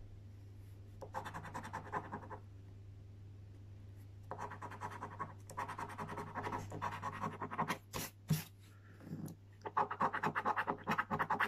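A coin scratching the coating off a Mega Cashword scratchcard in quick rubbing strokes, in three spells with short pauses between. Two sharp clicks come about eight seconds in.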